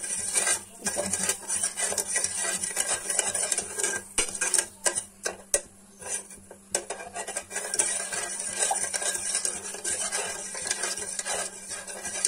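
A metal spoon stirring a sugar, honey and water mixture in a metal pot, scraping and clinking against the sides and bottom. The stirring thins to a short lull about halfway through.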